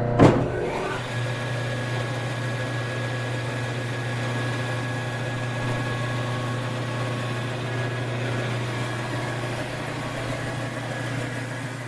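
Biro 3334 commercial meat and bone band saw switched on with a sharp clunk, then running steadily with its blade spinning, very quiet. Under it runs the steady low hum of the 3-phase converter that powers it.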